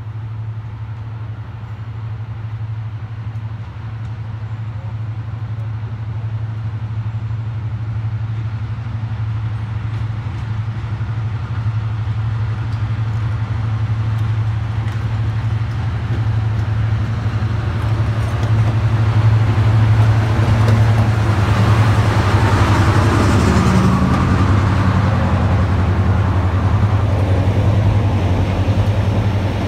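A diesel locomotive hauling a passenger train comes closer, its engine's steady low drone growing louder. It is loudest and fullest as it passes close by, about 20 to 25 seconds in, and the coaches then keep rolling past on the rails.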